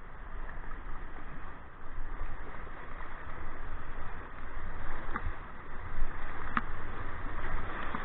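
Breaking surf and whitewater rushing and splashing around a kayak, close to the microphone, getting louder toward the end. Two sharp knocks stand out, about five and six and a half seconds in.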